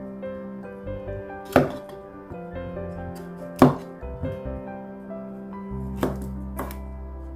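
Chef's knife cutting through broccoli stems and striking a wooden cutting board: four sharp chops spaced well apart, the loudest about halfway through. Background music plays throughout.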